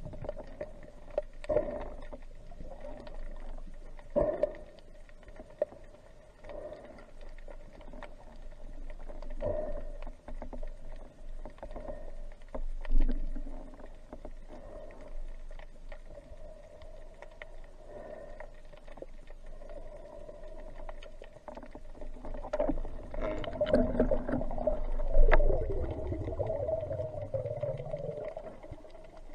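Muffled underwater sound picked up by a camera in its waterproof housing: a steady hum with scattered knocks and clicks, growing louder near the end, when the hum wavers in pitch over a low rumble.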